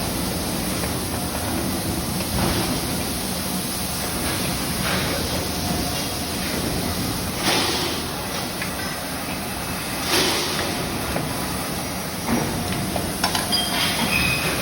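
Baler conveyor machinery running with a steady hum and mechanical noise. There are a few short, louder rushes, and clattering with faint squeaks near the end.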